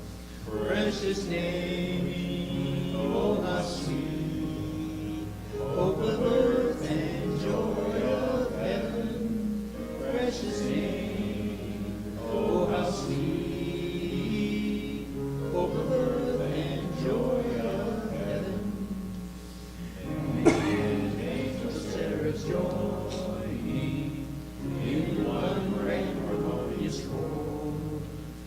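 A congregation singing a hymn together in phrases of a few seconds, with instrumental accompaniment.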